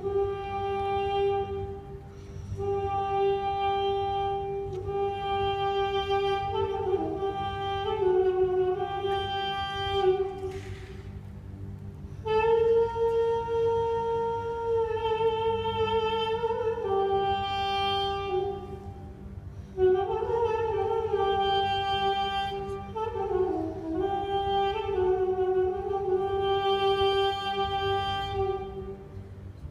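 A solo woodwind plays a slow melody in long held notes, in phrases broken by short pauses, over soft orchestral accompaniment.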